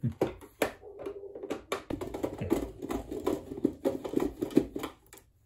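Clicks, knocks and scraping from a plastic Brother sewing machine housing being handled and turned around on a cloth-covered workbench, with a screwdriver tapping against it. The handling stops about five seconds in.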